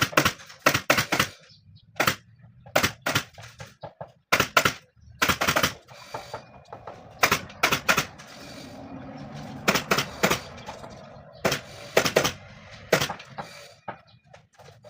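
Upholstery staple gun firing staples one after another into the chair frame as the new cover fabric is fastened on, in sharp, irregular clicks that often come in quick pairs, with a short pause about halfway through.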